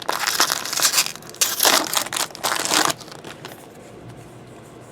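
Crinkling of a foil trading-card pack wrapper being handled and crumpled, in several loud bursts that stop about three seconds in.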